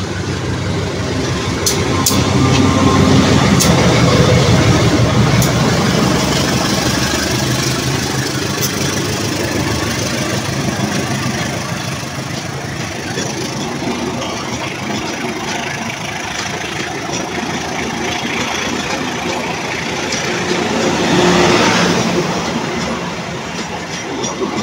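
Diesel-electric locomotive passing close by, its engine loudest in the first few seconds, followed by the steady rumble and clatter of passenger coaches rolling past on the rails.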